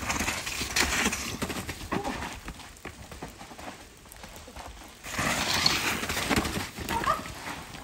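Mountain bikes descending a steep, muddy forest trail: tyre noise in wet mud with the rattling and knocking of the bikes over roots and ruts, loudest in two stretches, near the start and from about five seconds in. A short squeak comes near the end.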